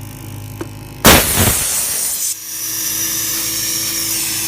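12-volt portable air compressor running under load with a steady buzz. About a second in there is a sudden loud rush of escaping air as the tire is finished and the chuck comes off the valve. The compressor then runs on with a steady hiss and a higher whine.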